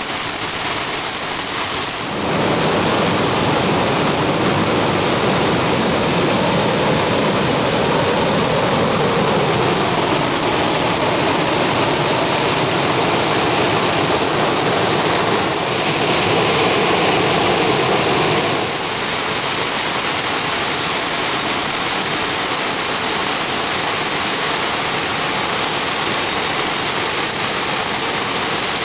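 Rolls-Royce Derwent centrifugal-flow turbojet running on a full-power test: a steady high whine over a loud continuous roar. The whine steps up slightly in pitch about two seconds in, and the roar swells for a few seconds past the middle.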